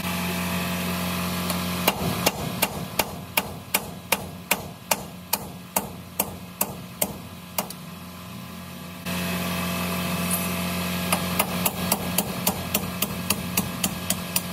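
Hammer blows on steel, driving at a seized king pin in a truck lift axle's steering knuckle. A steady run of sharp ringing strikes, a little over two a second, is followed by a quicker, lighter run of taps over a steady background hum.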